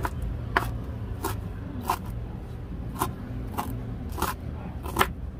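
Kitchen knife chopping cabbage finely on a wooden cutting board: about eight sharp knocks of the blade hitting the board, roughly one every half second or so, with a short pause near the middle.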